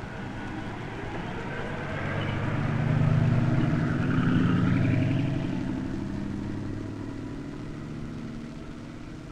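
Vehicle engine running, swelling to its loudest about three to five seconds in and then fading away as it passes.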